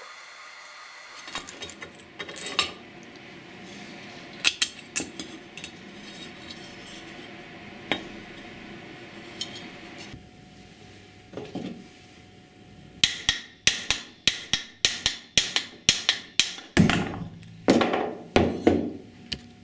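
Scattered small metallic clicks and handling of motor parts, then, from about two-thirds of the way in, a fast run of sharp hammer blows on metal, roughly three a second, as an old electric motor is knocked apart.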